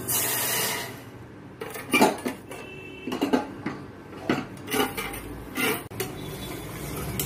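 Water pours into a small stainless-steel saucepan for under a second, then a metal spoon stirring sugar and water clinks and scrapes against the sides of the pan several times, dissolving the sugar for syrup.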